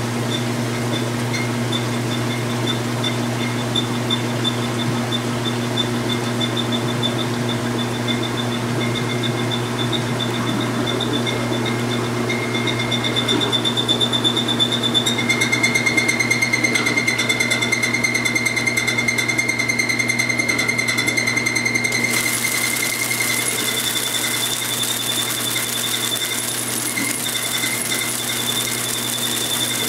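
Kenmore 60 Series top-loading washer in its spin cycle: the motor and spinning tub give a steady hum with a rhythmic whir over it. About two-thirds of the way in, a hiss of water spraying into the spinning tub joins in.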